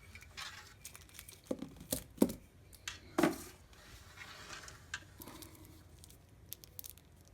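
Small objects being handled by hand: a scatter of light clicks and knocks, two sharper ones about two and three seconds in, with some rustling in between.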